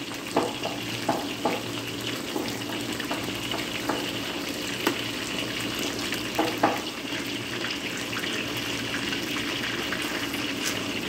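Battered chicken strips deep-frying in hot oil in a stainless steel wok, a steady crackling sizzle, with a few sharp clicks in the first seven seconds.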